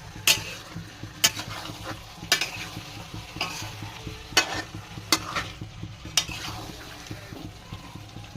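Food sizzling in a hot pan while a spatula stirs it, scraping and knocking against the pan about once a second. The strikes thin out near the end.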